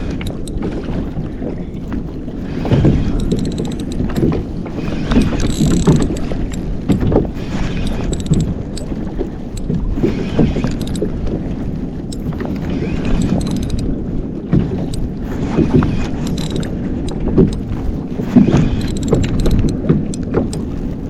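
Water lapping and slapping against a kayak's hull in uneven knocks and swells, with wind buffeting the microphone.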